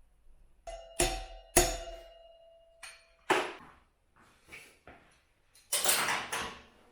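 Metal parts and tools clanking on a motorcycle workbench. About a second in come two sharp strikes that leave a ringing tone, then scattered knocks and a short rattling clatter near the end.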